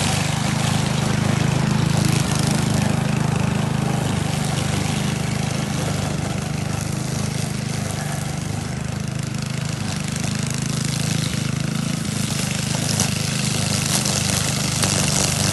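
Cub Cadet WST wheeled string trimmer's engine running steadily under load while its spinning line cuts through tall grass, with a steady hum and a hiss on top.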